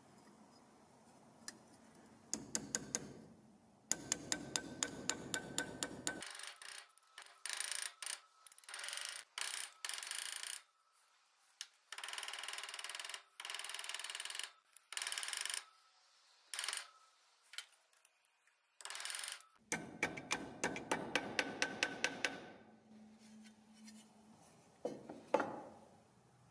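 A hammer tapping rusty stamped-steel toy-plane parts flat on a steel block: runs of quick, sharp metallic strikes at about five or six a second, each ringing briefly. In the middle the strikes come in short, chopped bursts.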